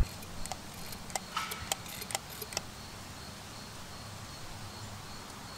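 Faint, steady high insect trill over quiet outdoor background. About a dozen light clicks and ticks in the first half come from a small metal drain plug being handled and wiped with a rag.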